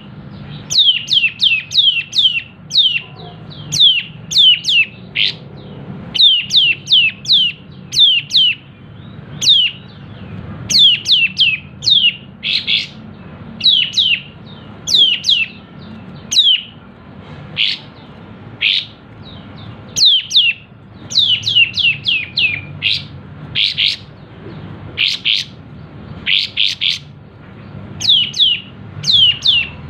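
Kapas tembak bulbul calling in quick runs of sharp, falling chirps, two to five at a time, with harsher buzzy notes mixed in, over a steady low hum.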